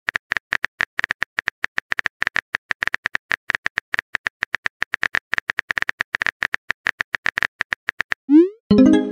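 Simulated phone-keyboard typing: a rapid, even run of key-tap clicks. Near the end it is followed by a rising swoosh and a short chime, the message being sent.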